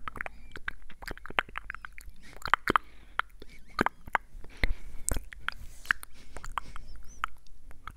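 Close-up ASMR mouth sounds: a quick, irregular run of small clicks and smacks.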